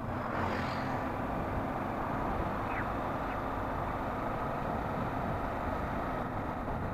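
Motorcycle riding at a steady cruise: the engine runs evenly under a constant rush of wind noise on the bike-mounted microphone.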